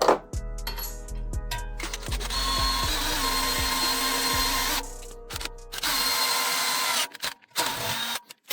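A handheld power tool working metal runs steadily in two bursts, one from about two seconds in to nearly five, another from about six to seven seconds, with a few short bursts near the end. Background music plays under it.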